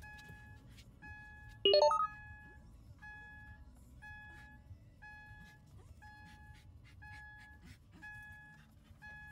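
Car's warning chime beeping steadily about once a second. About two seconds in, the restless Shiba Inu gives one short, high-pitched whine that rises in pitch and is the loudest sound.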